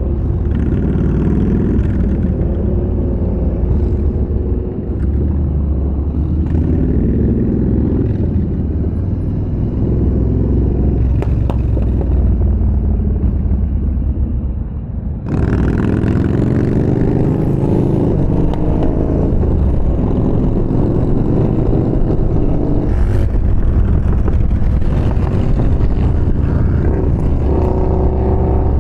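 Yamaha Bolt's air-cooled V-twin engine running on the road, its pitch rising and falling with the throttle. The sound dips briefly about halfway through, then comes back louder and brighter, with rising revs again near the end.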